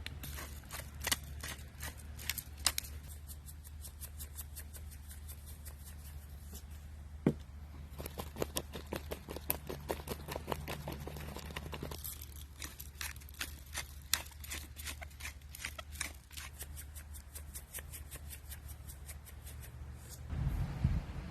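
Food frying in a pan on a Coleman propane camp stove, with irregular pops and crackles that come thick and fast in stretches.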